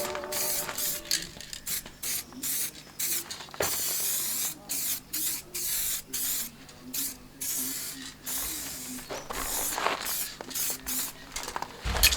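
Paint being sprayed in many short bursts of hiss, each lasting a fraction of a second with brief gaps between, as a patch of the car's body is touched up.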